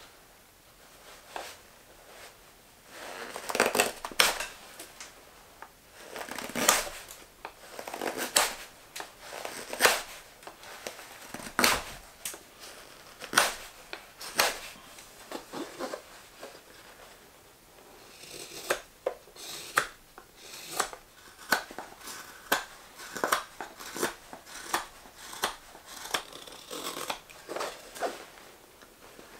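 Straight carving knife slicing shavings from a green maple spoon, a series of short crisp cuts. They come irregularly at first, then settle into about one or two cuts a second in the latter half.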